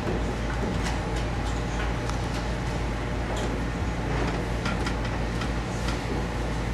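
Room tone: a steady low hum and background noise, with scattered small clicks and knocks.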